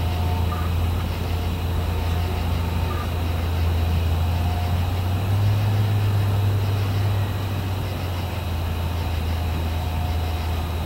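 Steady low engine drone of an approaching CSX freight train's diesel locomotives, heard from a distance as the train comes up the line; the drone swells slightly midway.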